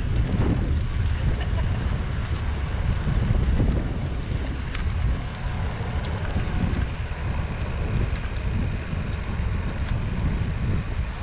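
Wind buffeting the microphone of a GoPro carried on a moving bicycle, a steady low rumble.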